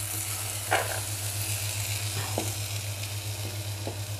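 A metal spoon gives a few short scrapes and taps as cooked taro-leaf curry is served from a stone pot onto a banana leaf, about three strokes in all. Under them runs a steady hiss and a low electrical hum.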